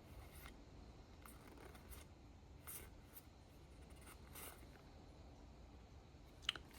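Faint sliding and brushing of Pokémon trading cards being flipped through by hand, with a sharper tap near the end.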